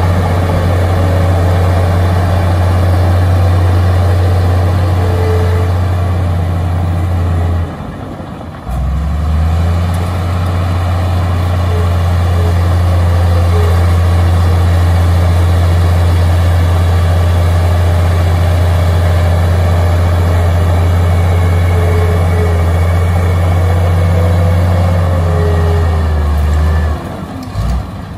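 Komatsu D53A crawler bulldozer's diesel engine running steadily under load as it pushes dirt with its blade, a heavy low drone. The sound drops away briefly about eight seconds in and again near the end.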